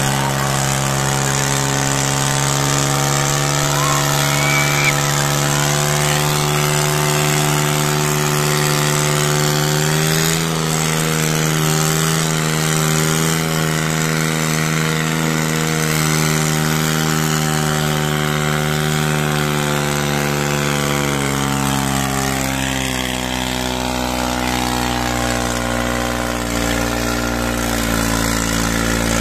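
New Holland 3630 tractor's diesel engine running hard under heavy load as it pulls a loaded trolley through soft ground. It holds a steady note that rises a little about a third of the way in and falls back again after about three quarters.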